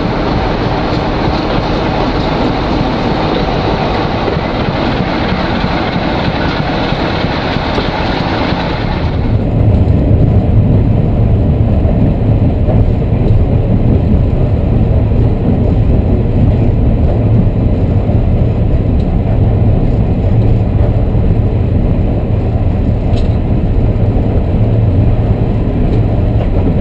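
Class 14 diesel-hydraulic locomotive's Paxman diesel engine running, heard from inside the cab as the locomotive moves slowly. About nine seconds in, the sound changes abruptly to a deeper, steadier hum.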